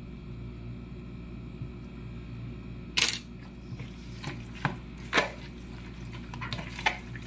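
A utensil clicking and knocking against a mixing bowl as cooked spaghetti is tossed with butter cubes: a handful of short, sharp knocks, the loudest about three seconds in, over a low steady hum.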